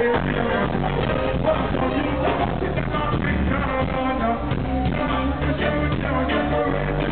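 Live reggae music played loud over a concert sound system, with a steady bass line and drum beat under pitched parts.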